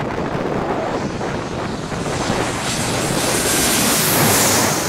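Jet airliner on final approach with landing gear down, its engine roar building as it comes in low and peaking as it passes directly overhead about four seconds in, with a loud hissing whine on top, then starting to fade.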